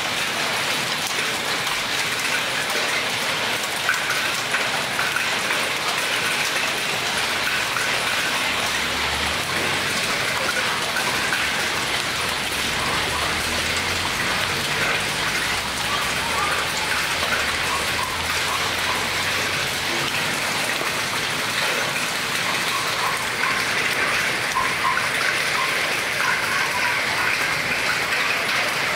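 Hailstorm: a steady, heavy downpour of rain and hail pattering on the ground and surfaces.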